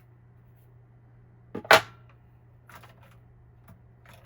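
A single sharp plastic click a little under two seconds in, followed by a couple of fainter clicks and taps, as cables are unplugged and parts unclipped inside a Dell OptiPlex 3020 small-form-factor desktop case.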